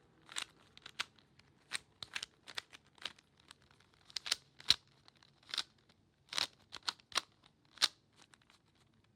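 A 3x3 speed cube being turned by hand, its plastic layers making a string of sharp, unevenly spaced clicks and snaps, about twenty in all.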